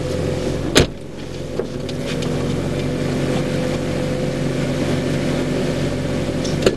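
Mercedes-AMG sports car's engine idling steadily while the car stands still, heard from the cabin. A sharp knock about a second in and two more near the end, as the driver climbs out of the seat.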